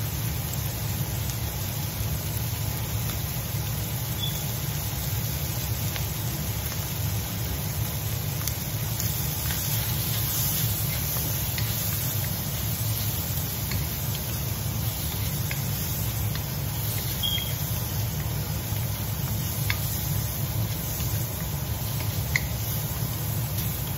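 Shrimp and green beans sizzling in a steel wok while a wooden spatula stirs them, scraping and tapping lightly against the pan now and then, over a steady low hum.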